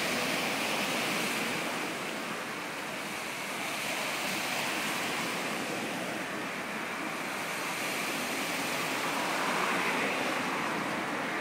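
Small sea waves washing against shoreline rocks: a steady hiss of surf that swells and eases slowly.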